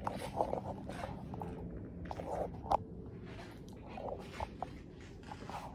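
Soft irregular rustling and a few sharp clicks from a handheld phone being moved about while filming, over a faint steady low hum.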